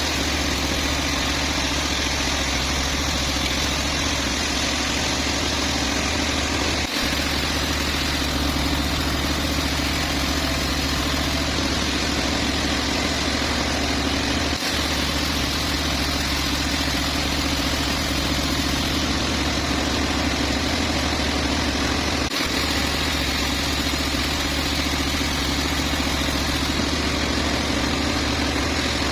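Sawmill machinery running at a steady drone, with a strong low hum and no change in load. It drops out for an instant three times, evenly spaced.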